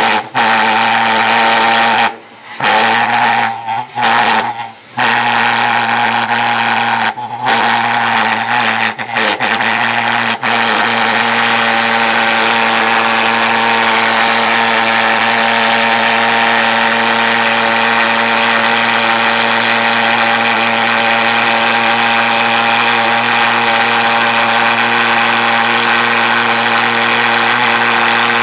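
Homemade jet engine running loud with a steady drone. It cuts out briefly several times in the first ten seconds, then runs without a break.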